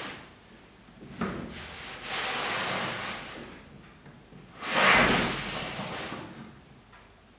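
Pleated woven cloth set with small metal plates being pushed together into tight folds and then pulled open flat, its pleats and plates rustling and swishing. A short tick about a second in, a swish as the pleats close, and a louder, longer rush about five seconds in as the cloth is spread open.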